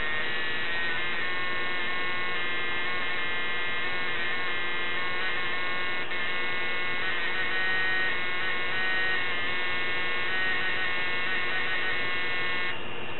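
Quantum Sniffer QS-H150 handheld explosives trace detector running its analysis cycle on a clean sample trap: a steady electric buzz with a high whine. The whine drops away near the end.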